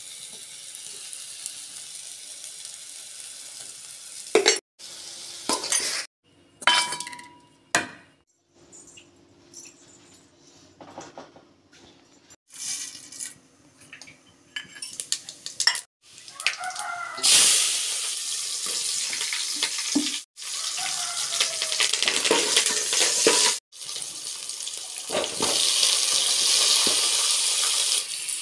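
Vegetables and spices frying in oil in a metal pot, with a ladle stirring, scraping and clinking against the pot. Several short clips are cut together; the sizzling is louder and steadier in the second half.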